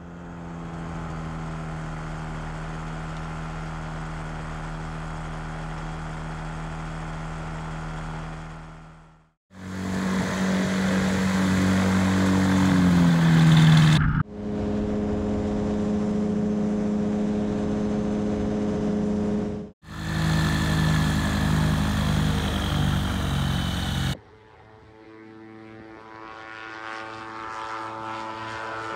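Ultralight aircraft engine and propeller running in several short clips cut together, mostly at a steady pitch. In one clip the pitch drops as the engine comes off power. Near the end an ultralight grows steadily louder as it takes off and climbs past.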